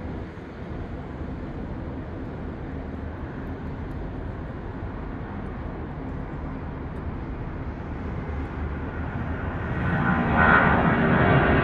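Boeing 757-200's twin Pratt & Whitney PW2000-series turbofan engines at takeoff power, heard from a distance: a steady low rumble through the takeoff roll and rotation. About ten seconds in it grows clearly louder and gains a rasping edge as the jet climbs out toward the listener.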